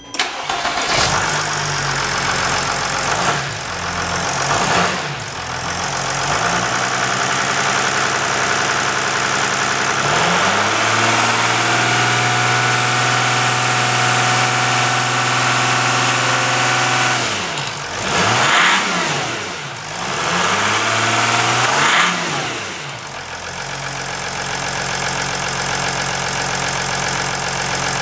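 Mercedes OM642 3.0-litre V6 turbodiesel in a Jeep Grand Cherokee CRD starting, then revved: two short blips, a held higher rev from about ten seconds in for about seven seconds, two more blips, then a steady idle over the last few seconds. It is running with one glow plug unscrewed but stuck in its bore, revved to try to blow the plug out with cylinder pressure; the plug does not come out.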